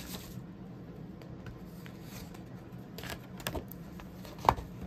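Handling noise of a printed card and packing material: a few light clicks and rustles about three seconds in, then one sharp tap about four and a half seconds in.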